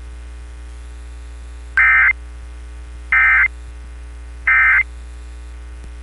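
Emergency Alert System end-of-message data signal: three short bursts of warbling digital tones about 1.4 seconds apart, marking the end of the alert. A steady low hum from the radio stream runs underneath.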